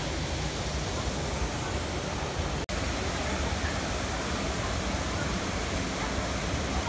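Small waterfall rushing steadily into a rock pool. The sound cuts out for an instant a little under three seconds in.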